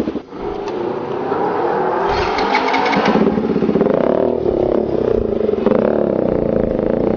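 Motorcycle engine pulling away and accelerating, its pitch rising and dropping as the rider works up through the low gears. A short rush of noise comes about two seconds in.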